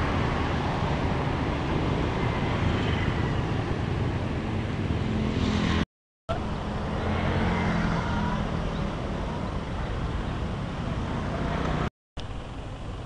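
Road traffic: cars running and passing on a busy street, a steady rumble broken twice by a brief silence.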